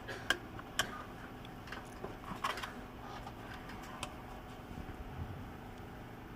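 Light clicks and taps of a hand screwdriver working the small screws on a laptop's plastic case, a few scattered strokes over a faint steady hum.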